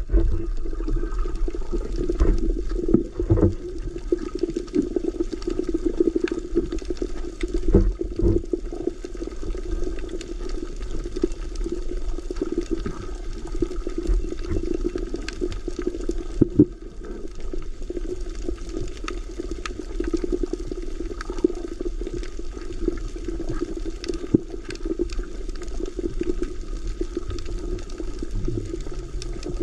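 Underwater ambience picked up by a camera in its waterproof housing: a steady, muffled water rush with scattered clicks and crackles.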